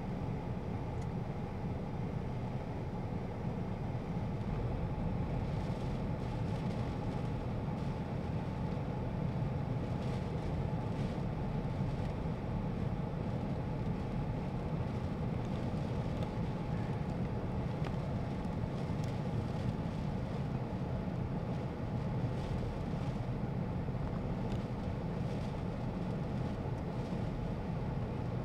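Steady rumble of a car driving on a rain-soaked road, heard from inside the cabin: engine and tyre noise on wet pavement.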